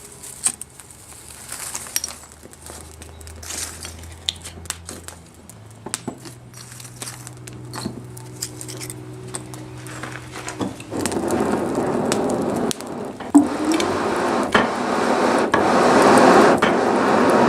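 Light scattered clinks and knocks of metal being handled, then about two-thirds of the way through a forge fire starts up with a steady rushing roar that keeps getting louder.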